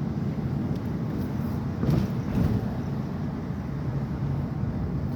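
Dodge Durango's 5.7 Hemi V8 running smoothly with a steady low rumble, with none of the ticking it had from misfiring spark plugs; the plugs are newly replaced. Two brief louder bumps come about two seconds in.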